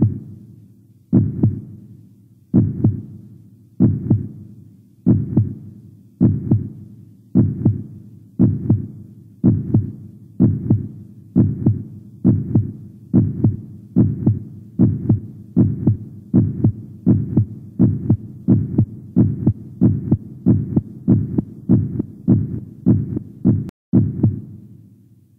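A deep repeated thump, each one ringing out before the next, like a slow heartbeat: about one a second at first, gradually speeding up to about two a second, with a brief dropout near the end.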